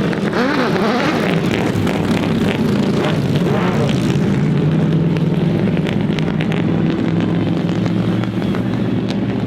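Vehicle engine running loudly and steadily, its pitch wavering briefly about half a second in and again around three and a half seconds.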